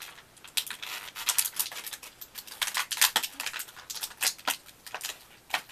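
Plastic toy packaging crinkling and crackling in quick irregular clicks as it is handled and pulled open.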